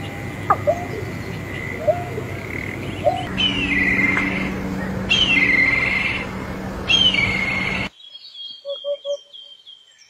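Bird calls in three stretches. First come short rising call notes. From about three seconds a black kite gives three descending, trilled whinnying whistles. Near the end, after a drop in level, a Eurasian hoopoe calls its low three-note "oop-oop-oop" once, with faint high bird notes above it.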